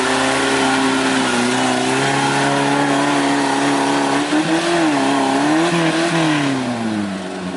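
Off-road jeep engine running at a steady pitch for about four seconds, then revving up and down several times under load and settling lower near the end.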